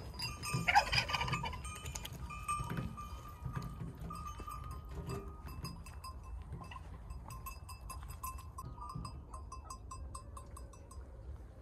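A sheep bleats about a second in, then small metallic clinks ring out over and over, coming several a second near the end.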